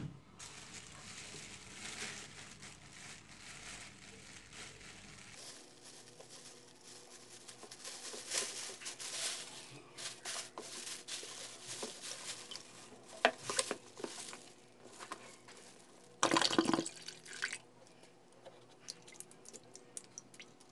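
Wet plastic bags crinkling and rustling while water sloshes and drips in a plastic basin, as a soaked plastic coolant reservoir is unwrapped and lifted out of the water, with one louder burst of noise about three-quarters of the way through.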